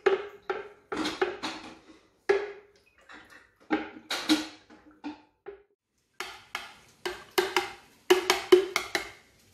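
A spoon stirring liquid in a glass jug, knocking and clinking against the glass in quick, irregular strikes, each with a short ring.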